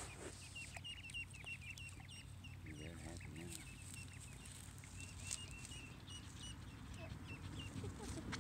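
Ducklings peeping: a rapid string of short, high peeps, several a second, coming and going as the brood moves together.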